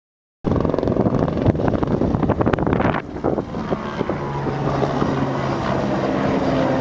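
Wind buffeting the microphone over a steady motor hum; from about four seconds in the engine tone holds even.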